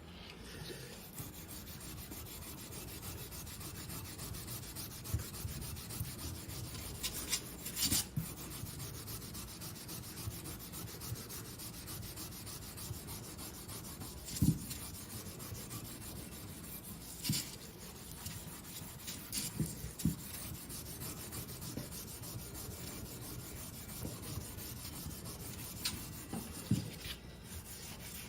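Klingspor Schleiffix abrasive rubber block scrubbing rust off metal to polish it, a steady rubbing with a few short sharp knocks now and then.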